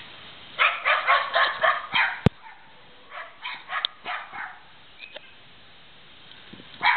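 Puppies yipping and barking in a quick run of short, high barks, with one sharp click about two seconds in; after it the yips come fewer and fainter, with one louder bark near the end.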